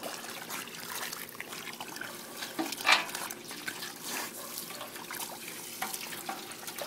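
Water running and trickling, with small splashes and one louder splash about three seconds in.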